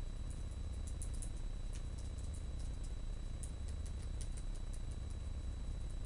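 Long fingernails clicking and tapping on a laptop keyboard during fast typing: light, irregular clicks over a steady low hum.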